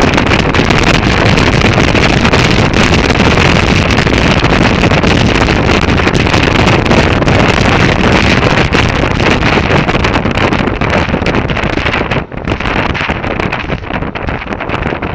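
Motorcycle riding noise heard from a helmet-mounted camera: loud wind rush over the microphone with the bike's engine and road noise beneath it. The rush eases and loses its hiss about twelve seconds in, after a brief sharp dip.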